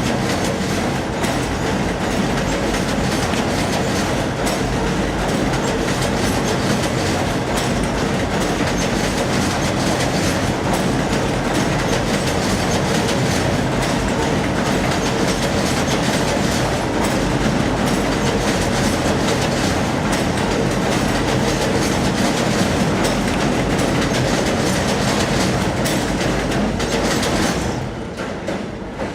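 N/Q line subway train passing the school, a loud steady rumble and clatter of rail cars that dies away near the end.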